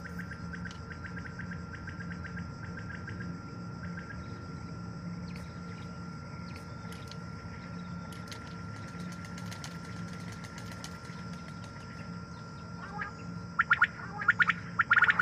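Steady low hum and hiss with a thin steady high tone and faint scattered ticks, then near the end a common quail calling loudly in sharp, quickly repeated bursts.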